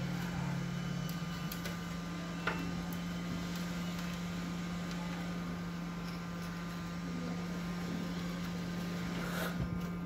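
Steady low background hum, with one faint click about two and a half seconds in as the plastic printer cover and control-panel parts are handled.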